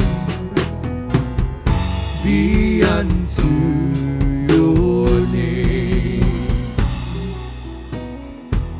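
Live worship band playing a song with drum kit, bass and other instruments, the drums keeping a steady beat. Near the end a final drum hit lands and the music drops away.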